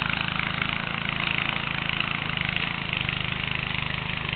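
An engine running steadily at an even speed, with a constant hiss over it.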